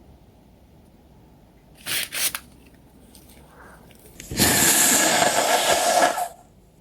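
Two short, sharp noises about two seconds in, then a person blowing a congested nose hard in one long, steady blow of about two seconds, the nose stuffed up from a cold.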